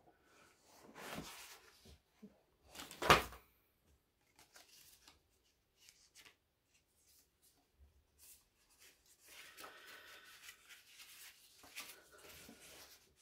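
Cardboard and wrapping paper being handled, rustling and crinkling in short bursts, with one sharp, loud crinkle about three seconds in and a longer stretch of rustling near the end.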